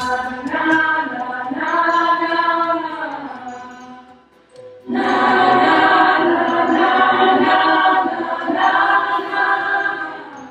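A choir sings long, held chords in two phrases. The first swells and fades away about four seconds in. The second comes in suddenly about a second later, louder, and fades near the end.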